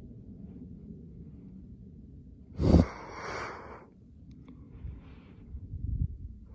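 A person breathing close to the microphone, with one loud, sharp exhale nearly three seconds in, over a steady low rumble.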